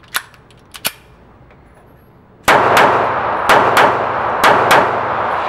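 Taurus PT738 TCP .380 ACP pocket pistol: two sharp metallic clicks as it is loaded and readied, then six shots fired in three quick pairs, each ringing on in the reverberant indoor range.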